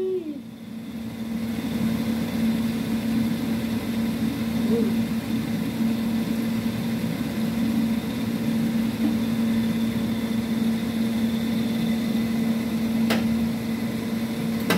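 Steady hum and rush at the gas stove as the wok of noodles cooks down on the flame, the broth boiling off. It builds over the first two seconds, then holds steady, with a single sharp click near the end.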